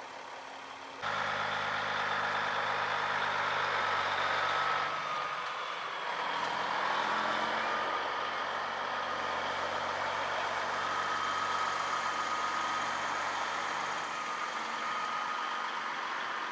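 Big-rig semi truck's diesel engine as the truck drives slowly past, a low engine note with a steady higher whine over it. The sound jumps up abruptly about a second in.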